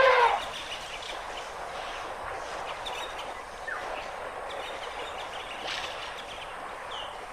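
Outdoor ambience: a steady hiss with a few faint bird chirps, after a loud pitched call that cuts off just after the start.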